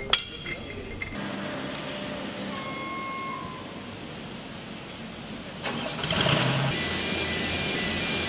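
Shipyard machinery noise: a sharp clank with a short ring just after the start, then a steady mechanical drone that swells louder about six seconds in.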